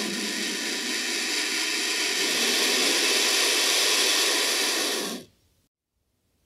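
Turkey vulture hissing: a long, steady, breathy hiss that stops abruptly about five seconds in.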